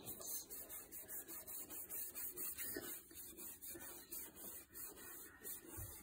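A paintbrush scrubbing on wet paint-covered easel paper: faint, soft rubbing strokes repeated about three times a second.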